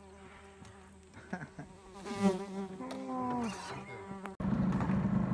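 A steady buzzing hum with a few short rising-and-falling calls over it. About four seconds in, it cuts abruptly to a louder, rougher boat motor running, with wind on the microphone.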